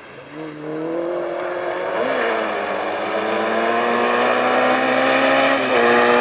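Rally car engine accelerating hard and coming closer. Its note climbs steadily and dips briefly twice as it changes up, and it grows steadily louder.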